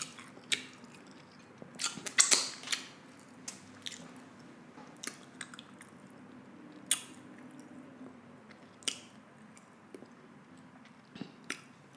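A person chewing and biting food close to the microphone, with scattered sharp wet mouth clicks and smacks.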